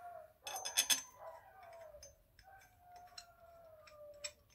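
Small metal clicks and rattles of the handlebar clamp's parts being handled, a quick cluster about half a second to a second in and a few single clicks later. Under them an animal gives long, drawn-out whining calls that slowly fall in pitch, several in a row.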